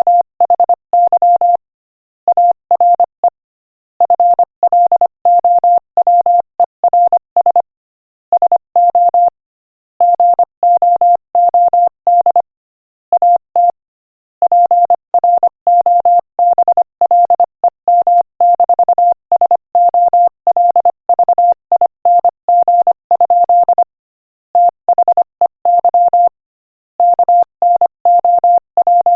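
Morse code sent at 25 words per minute as a single pure beep tone keyed on and off in short and long pulses, grouped into letters and words with brief pauses between groups, spelling out a joke.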